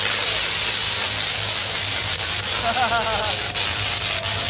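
Tesla coils discharging: a loud, steady hissing buzz of the electric arcs over a constant low hum, with sharp crackles near the end. A voice calls out about three seconds in.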